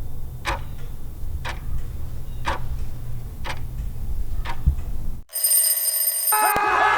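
Clock-ticking sound effect counting down a thinking pause, one tick about every second over a low hum. A clear, high ring follows, held for about a second, and near the end a cheering, whooping crowd effect begins.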